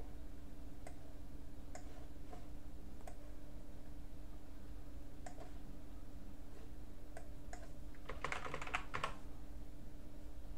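Computer keyboard typed in a quick burst about eight seconds in, entering a search term, after a few separate single clicks spaced a second or so apart. A steady low hum runs underneath.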